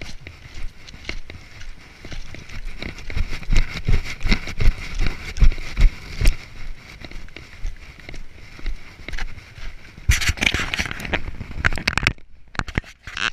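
Footsteps crunching on loose gravel as a person walks, with low gusts of wind on the microphone. The crunching gets denser and louder about ten seconds in, then stops briefly.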